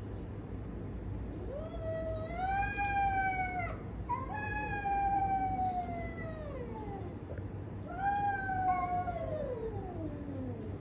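Domestic tabby cats in a fighting standoff, yowling: three long drawn-out wails, each holding its pitch and then sliding downward at the end. This is the threatening caterwaul of a territorial face-off before a fight.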